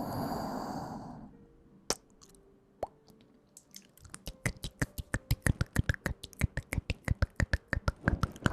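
Close-microphone ASMR mouth sounds: a breathy exhale, then a few sharp wet clicks and pops, building about halfway through into a fast run of about five or six clicks a second.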